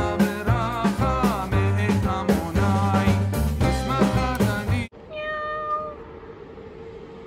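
Upbeat background music that cuts off suddenly about five seconds in. Then a domestic cat gives a single meow, about a second long.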